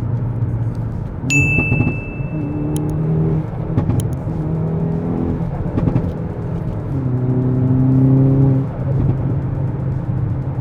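Hyundai Veloster N's turbocharged 2.0-litre four-cylinder, fitted with an AEM cold air intake, pulling hard under acceleration. The engine note climbs and drops back in steps through several gear changes. A brief high steady whistle starts about a second in, and a few sharp pops come around the third and fourth seconds.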